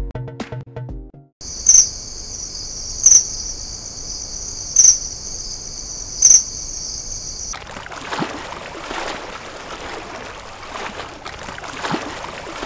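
A steady high-pitched buzz like an insect chorus, with a brighter click-like pulse about every second and a half, comes in after the last notes of electronic music. About halfway through it gives way to a rough rushing noise with scattered ticks.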